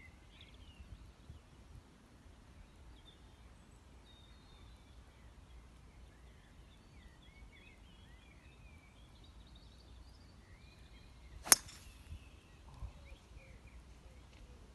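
Golf club striking the ball off the tee: one sharp crack about eleven and a half seconds in.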